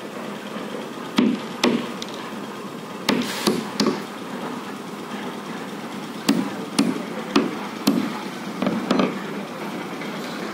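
Hammer blows on timber and plywood concrete formwork, struck in irregular pairs and small groups with short pauses between.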